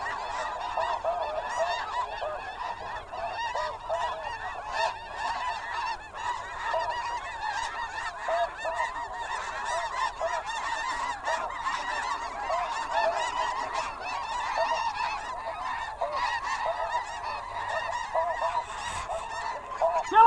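Large flock of snow geese calling overhead: a dense, steady chorus of many overlapping honking calls.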